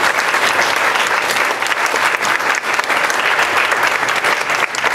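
Congregation applauding: many people clapping at once, steady and sustained.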